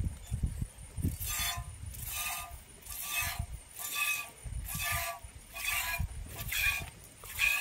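A goat being milked by hand: milk squirts into a container in short hissing strokes, about one a second.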